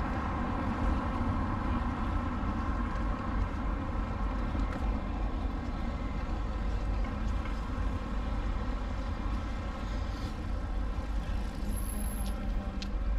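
A motor vehicle's engine running steadily close by, over the low rumble of street traffic.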